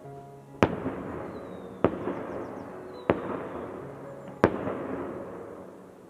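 Fireworks bursting: four sharp bangs about a second and a quarter apart, each trailing off in a crackle, with a faint falling whistle after the first bang.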